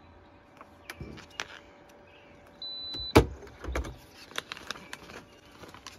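Cabela's commercial-grade vacuum sealer giving one short, steady high beep, then a loud clack about three seconds in as its locking handle is lifted and the lid springs open. Scattered clicks and crinkling of a plastic vacuum bag being handled follow.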